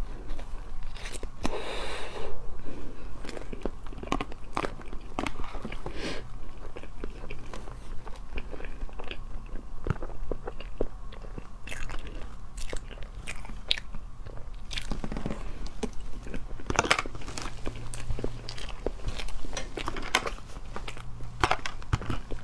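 Close-up eating sounds of a soft, thawed frozen matcha cream cake: wet chewing and biting, with many scattered short clicks of a plastic fork against a plastic tub.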